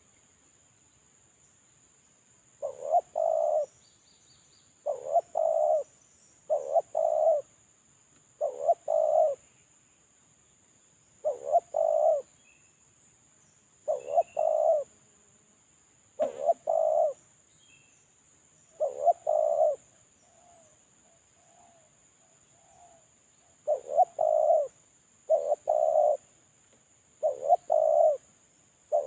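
Spotted dove (terkukur) cooing: a repeated phrase of two short notes and a longer coo, about every two seconds after a quiet start, with softer notes in a pause near the middle. A faint steady high whine runs underneath.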